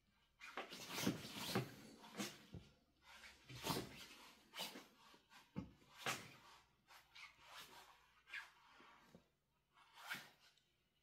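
A sleeping husky's hind legs kicking and scrabbling against a wooden drawer unit and a rug, in irregular scuffs and knocks: the leg paddling of a dog dreaming.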